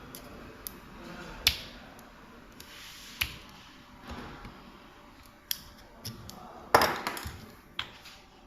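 Scattered sharp clicks and knocks of small metal parts and tools being handled and set down while a pneumatic tool is taken apart to fit new O-rings. The loudest knock, with a short scrape after it, comes near the end.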